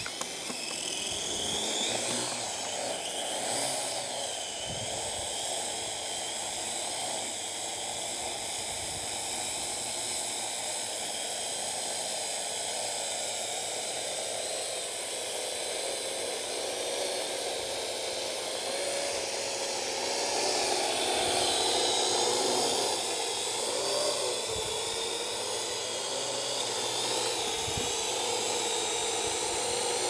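Parrot AR Drone quadcopter's four electric motors and propellers whining steadily as it lifts off and hovers low. The pitch wavers for a few seconds about two-thirds of the way through as the motors correct, and wind buffets the microphone now and then.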